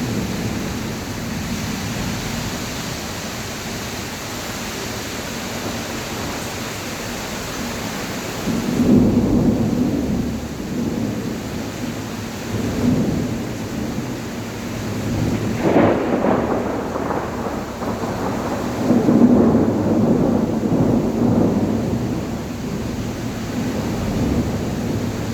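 Heavy rain falling in a steady hiss. From about nine seconds in, several low rumbles of thunder swell and fade over it.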